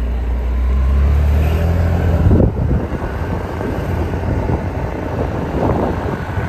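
Honda Activa scooter setting off and riding, its engine and the road noise mixed with wind rumble on the microphone. A heavy low rumble in the first two seconds gives way to a steady, noisier whoosh.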